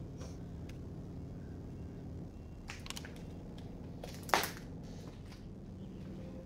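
A steady low hum with a few faint clicks, then one sharp crunching knock about four seconds in.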